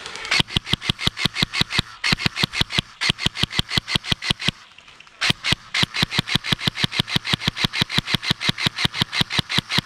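G&G ARP556 airsoft electric rifle firing on full auto, about a dozen shots a second, in two long bursts with a short break near the middle.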